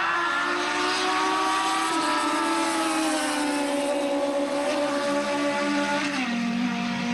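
Racing motorcycle engines running hard at high revs, the pitch sagging slowly and then dropping a step about six seconds in.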